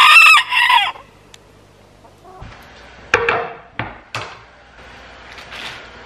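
A rooster crowing loud in the first second. Later come a few sharp knocks and clatters of kitchen handling: a knife set on a wooden cutting board and the refrigerator door opened.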